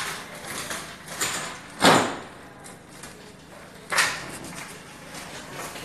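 Plastic casing of a split AC indoor unit knocking twice, about two seconds apart, the first the louder, as it is pushed into place on its wall mounting.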